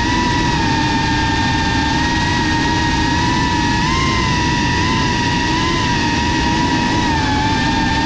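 FPV racing drone's brushless motors and propellers whining steadily over a rush of air, the pitch wavering slightly with the throttle and lifting briefly about halfway through.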